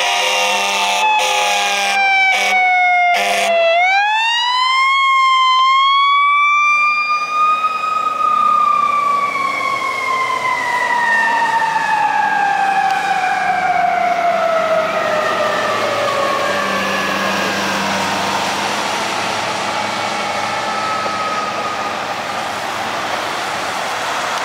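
Fire engine siren wailing: the pitch rises slowly, then winds down in a long falling glide that fades as the engine drives away. A few short horn blasts come about one to three seconds in.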